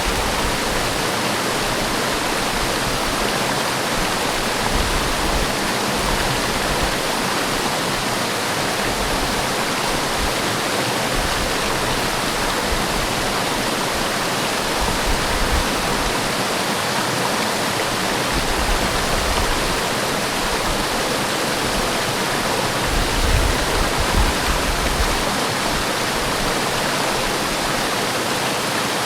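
Forest waterfall rushing steadily, a dense, even roar of falling water, with brief low rumbles now and then, the strongest about four-fifths of the way through.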